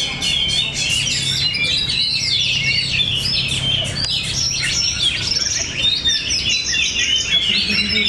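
Oriental magpie-robins (kacer) singing in competition: a dense, unbroken run of quick, varied whistled and chattering phrases from several birds overlapping.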